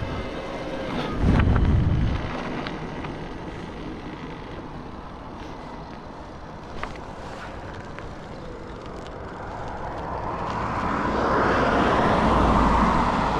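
Electric mountain bike being ridden: a steady rush of riding noise, louder for a moment about a second in and growing louder again over the last few seconds.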